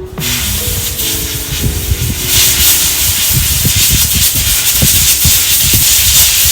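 Compressed-air blow gun hissing, blasting metal drill shavings out of a freshly drilled head-stud hole in an engine block. It starts abruptly and gets louder about two seconds in.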